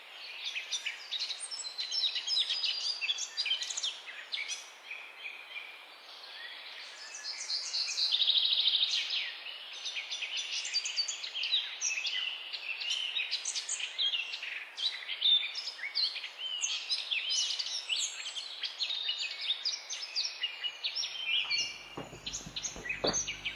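Chorus of many forest birds chirping and calling at once over a faint hiss, with a fast buzzing trill, the loudest part, about eight seconds in.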